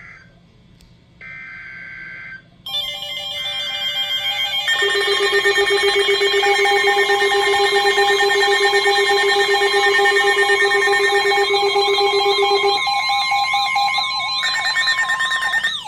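Emergency Alert System tones: two short, harsh data bursts, then from about three seconds in a loud pile of steady alert tones sounding over one another, with more data bursts partway through and again near the end, and a warbling tone coming in toward the end.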